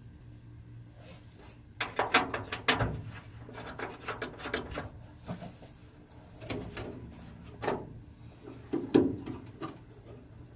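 Clicks, knocks and scraping of truck grille parts being handled and fitted, in several short bouts with the loudest about two seconds in and again near nine seconds.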